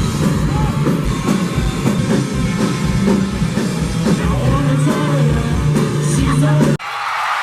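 Background pop-rock music with a drum beat and no vocals. It cuts off abruptly near the end, leaving a steady hiss.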